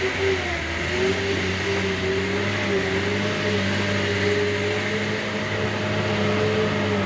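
Loaded truck's engine running with a steady drone, its pitch wavering slightly, heard from the open cargo bed.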